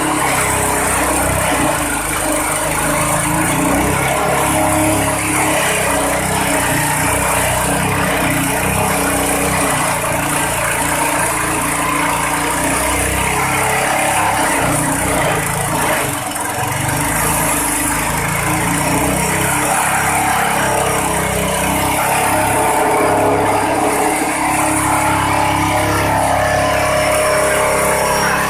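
Engine-driven multipurpose chopper (shredder) machine running steadily, with a brief dip in level about 16 seconds in.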